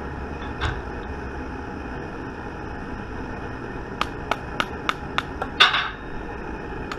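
A wooden stick knocking on a metal bullet mold: a run of sharp taps about three a second, starting about four seconds in, then one louder, longer clatter. This is the usual way of knocking the sprue plate open and the cast bullets loose from the mold.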